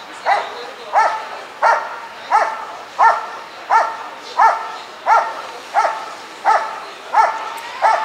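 German Shepherd Dog barking steadily in a regular rhythm, about three barks every two seconds, at the helper in the blind: a trained hold-and-bark in protection work.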